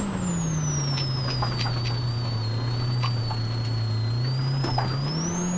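Polaris RZR Pro R's 2.0-litre four-cylinder engine running under way, with a high whine that follows engine speed. Revs are up at the start, ease off and hold, then climb again near the end. A few light knocks come from the machine over rough ground.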